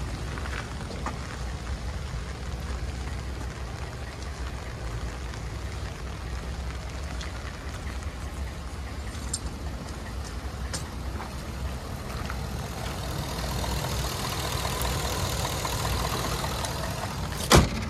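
A 2014 Ford F-150's 5.0L V8 idling steadily, growing louder in the last few seconds as the open engine bay is neared. A single sharp click sounds just before the end.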